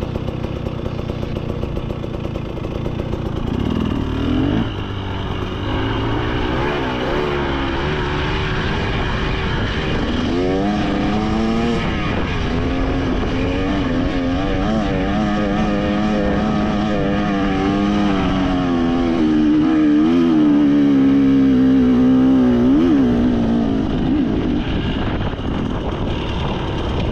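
KTM 300 XC two-stroke dirt bike engine being ridden on a trail, its revs rising and falling continually as the throttle is worked, louder about two-thirds of the way through.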